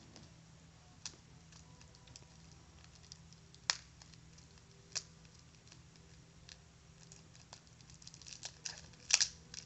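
Cellophane wrapper being picked at and peeled off a playing-card box: a few isolated crinkly ticks, then a busier run of crackling near the end.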